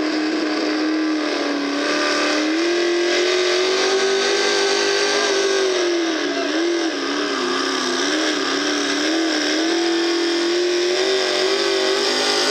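V8 engine of a hot rod pulling tractor running at high revs under load as it drags a pulling sled. Its pitch climbs about two seconds in, wobbles up and down for a few seconds past the middle, then steadies high again.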